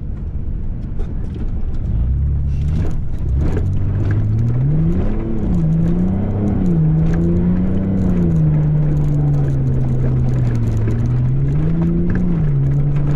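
Car engine heard from inside the cabin while driving on a snowy track, its revs rising and falling several times as the driver works the throttle, over steady road and tyre noise.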